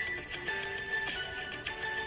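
Music: a light, tinkling melody of held notes.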